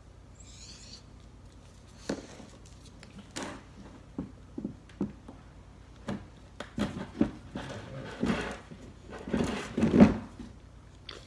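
English bulldog rummaging nose-first in a plastic storage bin of dog toys: scattered knocks and scrapes of toys against the plastic, getting busier in the second half and loudest near the end as he pulls a braided rope toy out.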